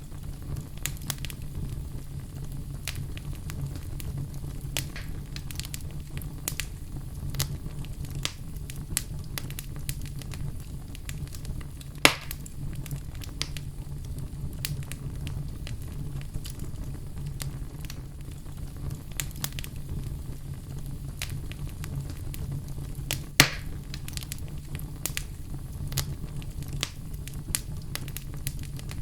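Wood fire in a fireplace crackling steadily, with many small snaps over a low steady rumble and two louder pops, one near the middle and one about two-thirds of the way through.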